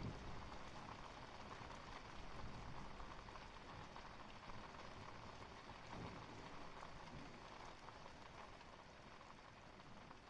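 Steady rain falling as a faint, even hiss, with brief low rumbles at the start and again about six seconds in.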